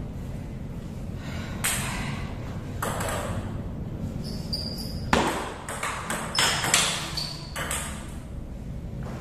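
Table tennis rally: the ball struck by paddles and bouncing on the table, a series of short sharp clicks that come close together about five to eight seconds in, over a steady low hum.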